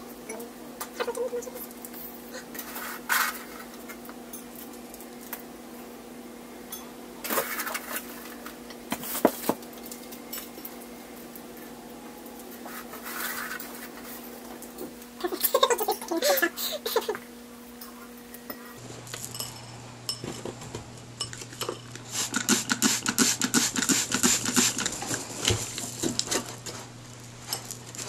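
Hands scraping and scooping potting soil in a metal tin and knocking against ceramic pots, in scattered scrapes and knocks. In the last third, small white decorative pebbles clink in a dense run of light clicks as they are dropped onto the soil in a ceramic pot.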